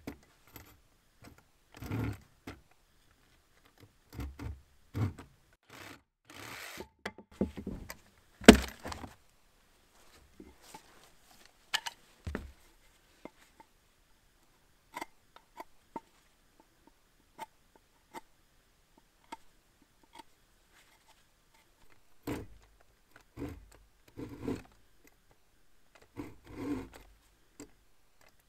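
Irregular knocks, clinks and scrapes of tools and wood being handled during woodworking, with one sharp knock about eight seconds in and scattered light clicks in between.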